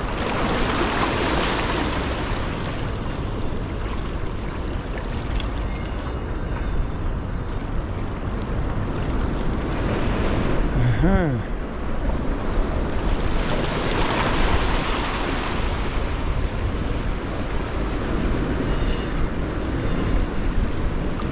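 Sea waves washing on the shore with wind buffeting the microphone, a steady rush that swells several times. About eleven seconds in there is one short pitched call that rises and falls.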